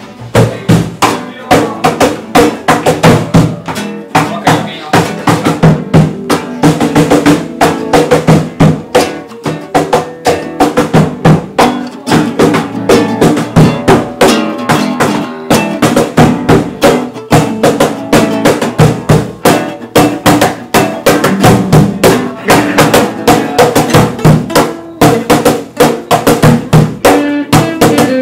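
Acoustic guitar strummed over a steady cajón beat, the music starting loudly right at the beginning.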